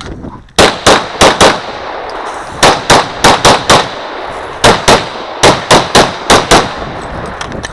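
Glock 35 pistol in .40 S&W firing rapid shots, about sixteen in three quick strings of four, five and seven.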